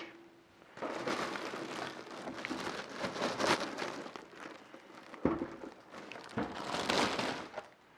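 Plastic packaging crinkling and rustling as it is handled and pulled off a PC case during unpacking, with two sharp knocks a little past the middle.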